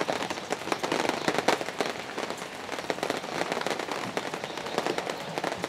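A steady, dense crackling patter of many fine clicks.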